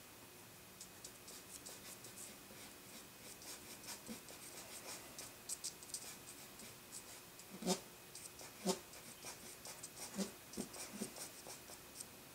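A fine brush stroking and dabbing charcoal on drawing paper: quick, faint scratchy strokes, with two louder taps a little past the middle.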